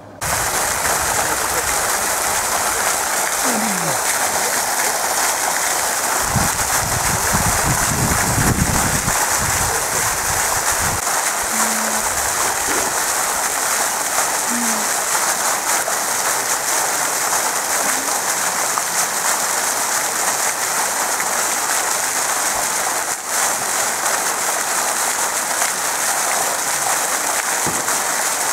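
A fountain jet of water falling back into its basin: a loud, steady rushing splash. A low rumble comes in from about six to eleven seconds in.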